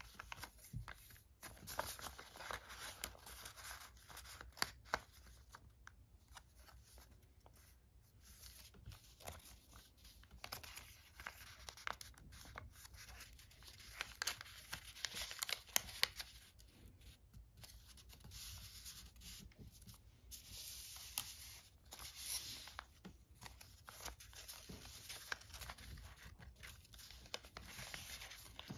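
Folded origami paper units rustling and crinkling as they are handled and slotted into one another, in irregular bursts with small clicks of paper edges.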